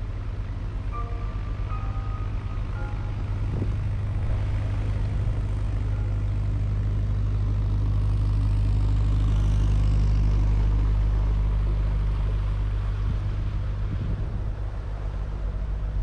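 Narrowboat diesel engines running at cruising speed, a steady low chug. It grows louder toward the middle as a second narrowboat passes close alongside, then eases off again.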